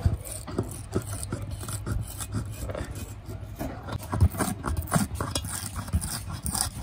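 Blunt flathead screwdriver prying and scraping under the glued edge of a speaker spider where it sits on the basket, making irregular scratching and short scrapes as the glue joint is worked loose little by little.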